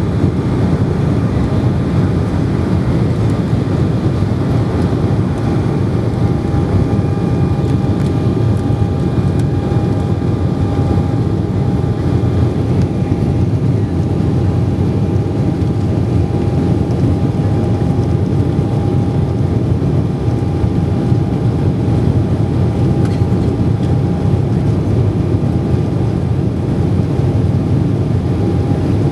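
Cabin noise of an Embraer E190 during takeoff and initial climb: the steady roar of its GE CF34-10E turbofan engines at high thrust, heard through the fuselage beside the wing. A steady whine joins about six seconds in.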